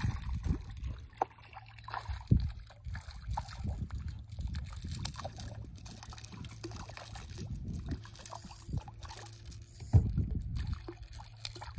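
Wind rumbling on a phone microphone, with light splashing as a hooked fish thrashes at the water's surface beside the boat and a few short knocks.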